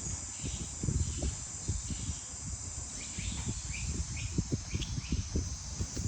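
Steady high-pitched insect drone, crickets, with a string of short rising chirps about halfway through and irregular low thumps and rustles.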